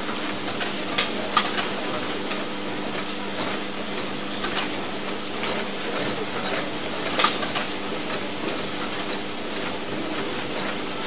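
Electronics assembly-line machinery running: a steady hum under a constant hiss, with scattered sharp clicks from the bench machines. The loudest clicks come about a second in and again about seven seconds in.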